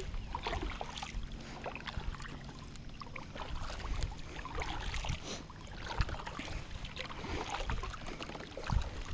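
Kayak paddle strokes: the blades dip in turn, with water splashing and dripping off them in an uneven rhythm.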